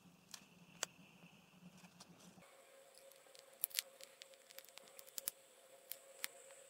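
Faint, sharp clicks and ticks of a plastic hook extractor being worked into a foam ball, over a faint steady hum. The clicks are scattered, with a quick cluster in the second half.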